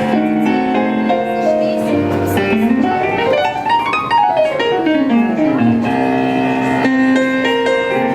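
Piano playing, a run of notes climbing about halfway through and falling back down, over held chords.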